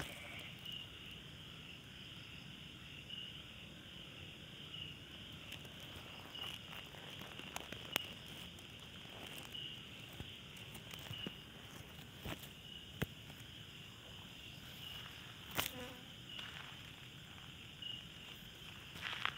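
Night insects chirping in a steady high trill that swells about once every second, with scattered sharp clicks and rustles in the dry grass.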